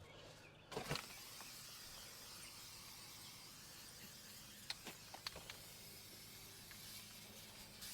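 Aerosol can of spray-on sealant hissing faintly and steadily, starting just under a second in, with a few light clicks a little past the middle.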